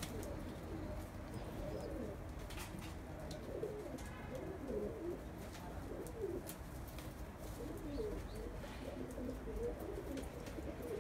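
Domestic pigeons cooing, many short low coos overlapping and repeating throughout, with a few faint clicks.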